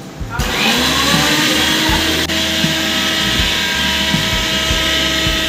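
Electric mixer grinder grinding ginger into a paste. The motor starts about half a second in, quickly spins up to full speed, then runs steadily with a loud whirr.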